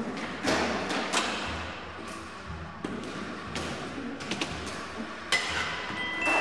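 Stunt scooters rolling over the concrete floor and wooden ramps of an indoor skatepark, with several sharp knocks as wheels and decks hit the ramps and floor.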